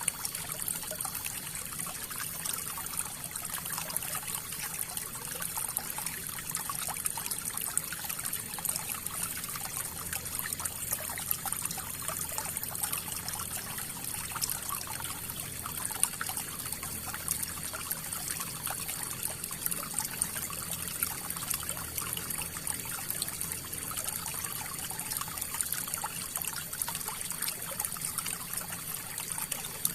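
River water flowing: a steady trickling, splashing babble that keeps an even level.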